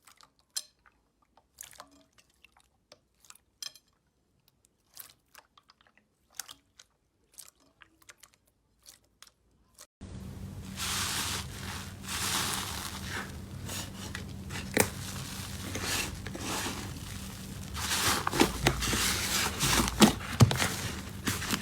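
Slime being pressed and squeezed by hand: sparse sharp clicks and pops at first, then, from about halfway, a continuous dense crunchy crackling, as of crunchy slime, with louder snaps near the end.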